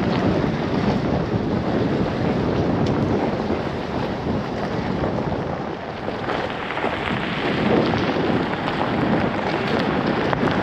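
Wind buffeting the microphone: a loud, steady, low rumble with no clear tones.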